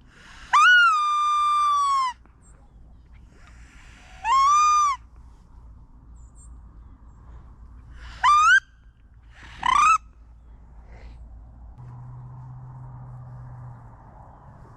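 Wood duck squeals: four loud rising whistled calls, the first held about a second and a half, the second shorter, then two quick ones close together. A faint steady low hum comes in near the end.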